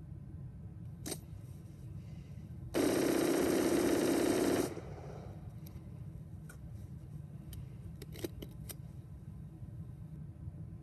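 Rapid continuous fire from an AR-15 rifle, a single sustained burst of about two seconds that stops abruptly, with a few lighter sharp clicks before and after it.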